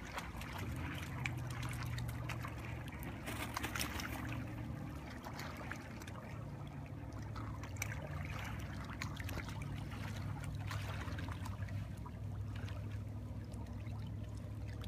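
Lake water lapping and trickling against a rocky shore, in many small irregular splashes, over a steady low rumble.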